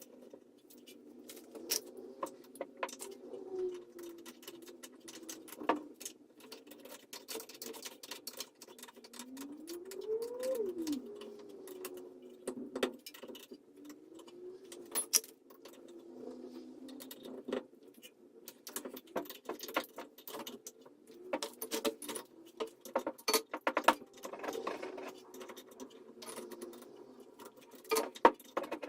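Irregular metallic clinks and clatter of tools and parts being handled, over a faint hum that rises and falls in pitch.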